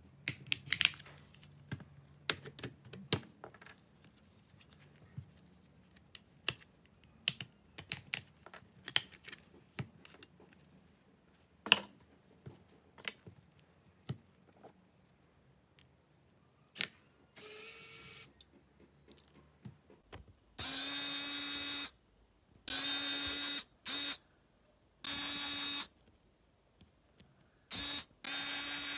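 Scattered sharp clicks and light taps as a phone is pried open with a plastic opening tool and its parts are handled. In the last third, an electric precision screwdriver runs in short bursts of about a second each, five times, as it backs out the screws holding an Oppo Neo 9's internal frame.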